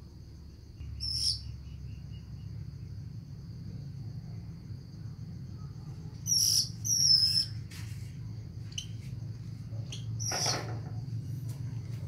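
Red-billed blue magpie calling in short, high chirps, the loudest two coming about six to seven and a half seconds in and a coarser one near the end, over a steady high insect drone.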